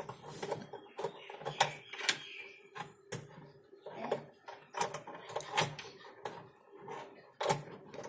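Irregular clicks and knocks of hard plastic parts as the drain-valve linkage of an Onida Lilliput semi-automatic washing machine is handled and hooked onto its last pin, over a faint steady hum. Moving the link to the last pin is meant to pull the drain valve open, so the tub that would not drain can empty.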